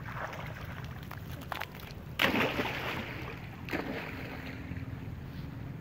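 A monkey swimming in shallow water, splashing: one sharp splash about two seconds in that fades out over about a second, and a smaller one near four seconds, over a steady low rumble.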